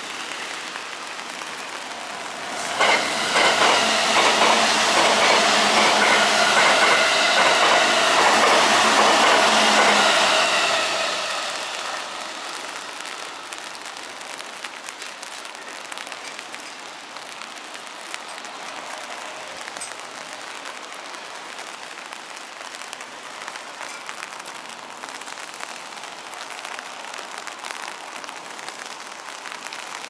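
JR East E353 series electric limited express train passing through the station at speed without stopping. It comes in suddenly about three seconds in, stays loud with a steady whine for about eight seconds, then fades away.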